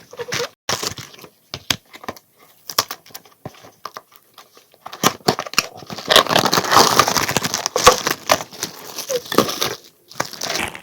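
Packaging being handled and unwrapped: scattered light crinkles and clicks at first, then, about halfway through, a denser, louder stretch of crinkling and rustling.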